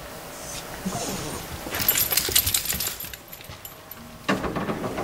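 Light metallic jingling and clicking for about a second, about two seconds in, followed near the end by a sudden louder rattle.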